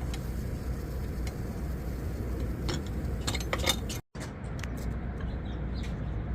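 Light metallic clinks and taps of the three-piece ball valve's parts being handled and fitted, clustered about three seconds in, over a steady low hum. The sound drops out for a moment just after four seconds.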